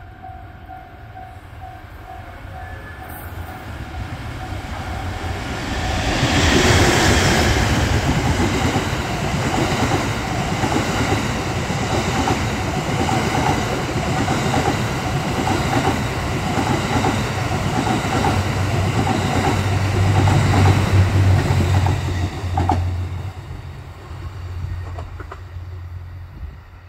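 Cassiopeia sleeper train, locomotive-hauled E26 series coaches, passing through the station: a rumble builds as it approaches and is loudest as the locomotive goes by. Then comes a long run of coach wheels clattering over the rail joints. About 23 seconds in the sound drops sharply to a quieter, more distant rumble.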